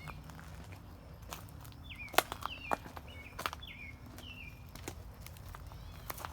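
Footsteps, a few sharp steps about two to three and a half seconds in, while a bird calls over and over in short falling phrases.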